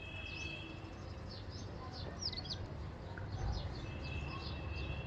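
Small birds chirping faintly, many short high calls scattered throughout, with a thin steady high tone near the start and again from about four seconds in.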